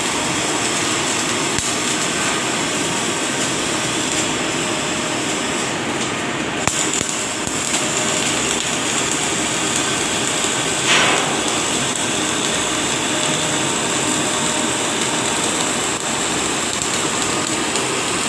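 Gas-shielded flux-cored (MIG) welding arc running steadily, a continuous dense crackle, with one brief louder burst about eleven seconds in.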